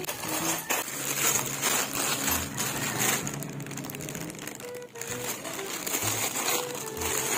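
Plastic courier mailer pouch crinkling and rustling as it is handled and turned over, with a quiet melody of background music underneath.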